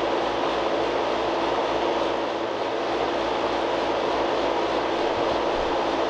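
Steady, even rushing background noise with a faint low hum underneath, unchanging throughout and with no distinct events.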